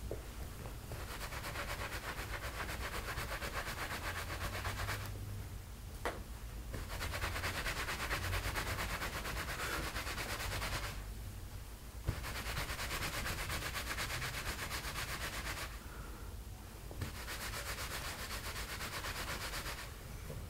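Towel rubbing wet hair dry, in four bouts of several seconds each with short pauses between. There are two light clicks, each near the end of a pause.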